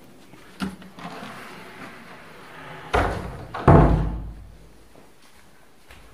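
A door being moved and shut: a rushing slide for about two seconds, then two heavy thuds less than a second apart.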